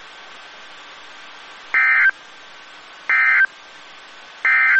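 Three short bursts of NOAA Weather Radio SAME digital data, the end-of-message code that closes the weekly test, each a brief electronic warble, evenly spaced a little over a second apart, over a steady radio hiss.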